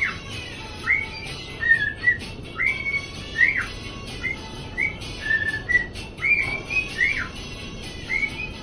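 Cockatiel whistling a tune: short, clear whistled notes that swoop up and then drop, repeated in phrases about once a second.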